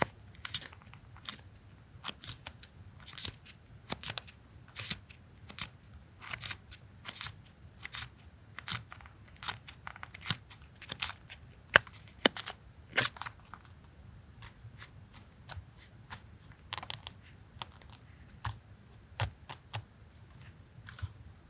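Paper and stationery being handled on a desk: irregular light clicks, taps and crisp paper rustles, a few sharper snaps in the middle.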